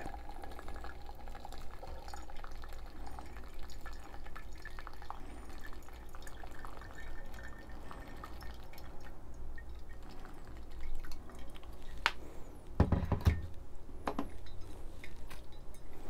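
Hot water poured slowly through a MeloDrip dispersion tool onto a bed of ground coffee in a pour-over brewer, a faint steady trickle and drip. A few sharp knocks and a short dull thump come near the end.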